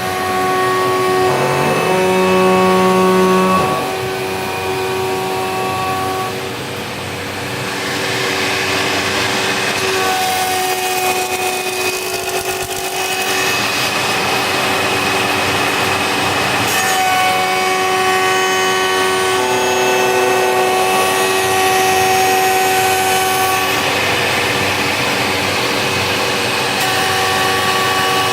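CNC machining centre cutting wooden furniture legs: a steady machine whine of several tones, with a short rising tone about two seconds in. From about eight seconds a rougher, hissing cutting noise joins in as the tool works the wood.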